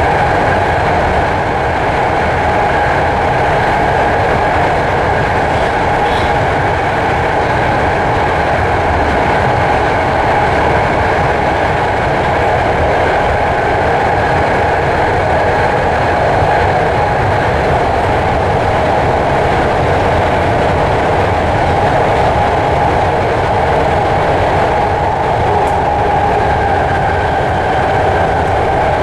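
BART Fleet of the Future train running at speed, heard from inside the passenger car: a loud, steady rumble of wheels on rail with a constant whine over it.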